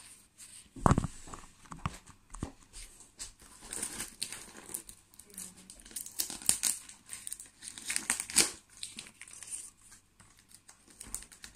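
Paper and plastic packaging crinkling and tearing in irregular bursts as a parcel is unwrapped, with a thump about a second in.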